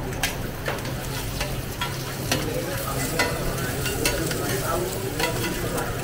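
Quail eggs sizzling on a large flat iron griddle, with a metal spatula and knife clinking and scraping against the griddle's surface every second or so.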